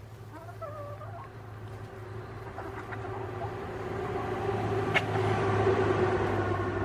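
A steady engine drone, from a passing vehicle, growing gradually louder. A short chicken call comes about half a second in, and a single sharp click about five seconds in.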